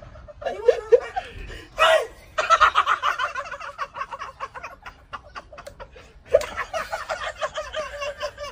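Men laughing hard, in long runs of quick, repeated ha-ha-ha pulses.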